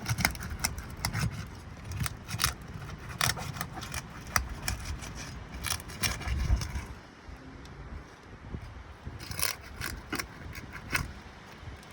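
Three-tab asphalt shingles being pried up and unsealed: the sealant strips crackle and tear in irregular sharp clicks and scrapes over a low rumble, thinning out about seven seconds in.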